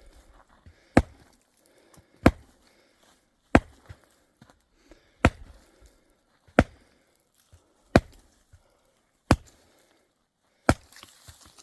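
Axe chopping dry wood: eight sharp, evenly paced strikes, about one every second and a half.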